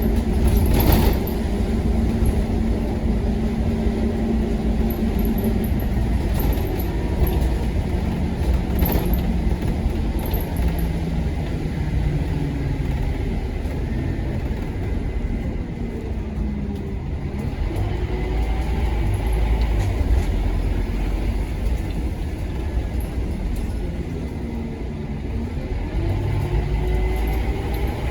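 Scania K230UB Omnilink bus's five-cylinder diesel engine running on the road, a steady low rumble with its pitch rising and falling as the bus pulls away and the ZF Ecomat automatic gearbox changes gear. Two brief knocks or rattles about one second and nine seconds in.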